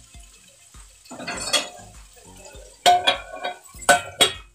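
Kitchen utensils and dishes clattering: a scraping rustle about a second in, then three sharp metallic clinks near the end.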